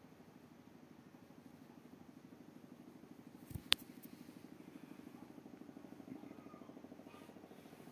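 Cat purring, a faint steady low rumble with a fast even pulse. A single sharp click about three and a half seconds in.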